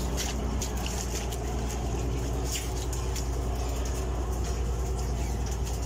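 Steady low machinery drone on a squid-jigging boat, from its engine and automatic jigging reels, with irregular sharp clicks and taps over it.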